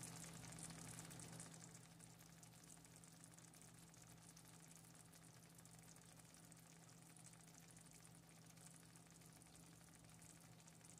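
Near silence: faint sizzling of a prawn and taro-stolon curry in a frying pan, a little louder in the first second and a half, over a low steady hum.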